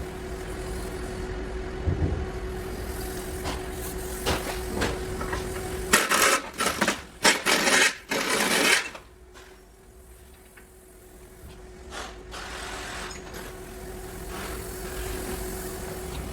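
Clanks and clatter of tools and metal parts during car disassembly: scattered sharp clicks, then about three seconds of loud, rapid clattering strokes, over a steady hum.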